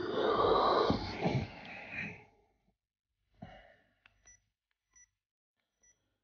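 A person breathing out heavily in a wheezy, breathy rush that dies away after about two seconds. Then near silence with a few faint clicks and short high beeps.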